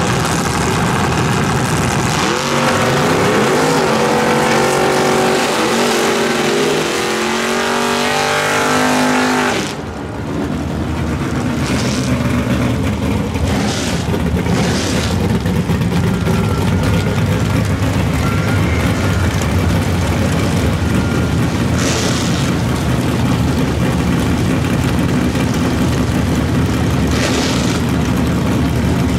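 A drag car launches off the line and accelerates hard down the strip, its engine pitch climbing in steps as it shifts gears, for about seven seconds. After a cut, a 1969 Chevelle drag car's engine runs at a steady low idle rumble, with a few short bursts.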